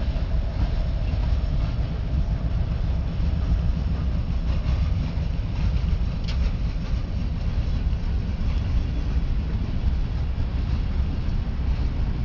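Steady low rumble of a Ferromex freight train, with no horn sounding, and a single sharp tick about six seconds in.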